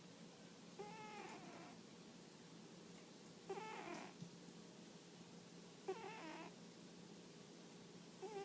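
A domestic cat snoring faintly in her sleep: three short, wavering, whistly snores, each about half a second long and about two and a half seconds apart, one with each breath.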